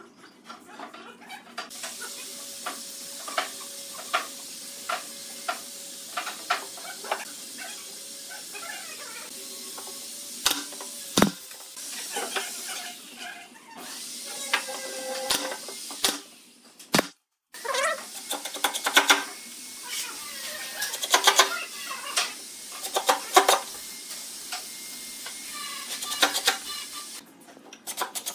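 Workshop handling sounds from wooden pieces being worked on a bench: irregular knocks, taps and clicks, with a few sharp louder strikes and a faint steady hiss through the first half.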